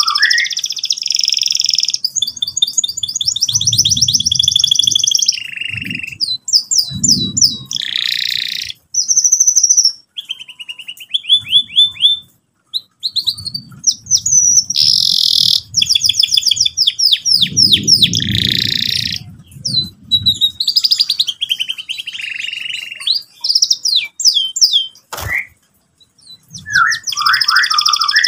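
Domestic canary singing loudly: long, fast rolling trills and chirps in bursts with short pauses, the rolling (ngerol) song sought in a training recording. A low rumble sits under parts of the song, and there is a single sharp click about 25 seconds in.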